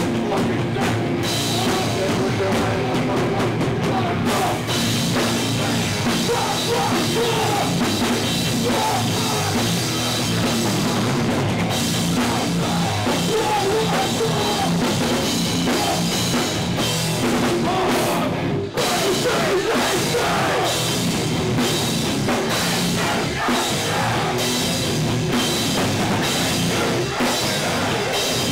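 A heavy rock band playing live and loud: pounding drum kit with bass and guitar, filling the room, with a split-second break about two-thirds of the way through.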